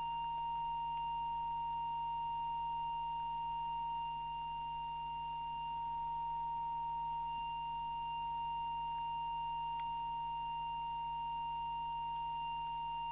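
Steady, unbroken test tone from a small audio oscillator, fed into a CB transmitter's microphone while its FM deviation is set. It is one clear pitch with faint higher overtones.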